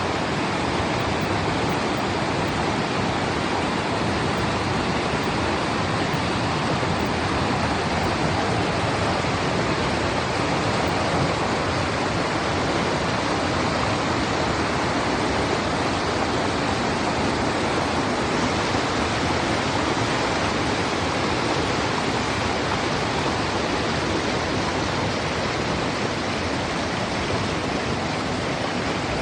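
River water rushing steadily, an even, unbroken wash of water noise.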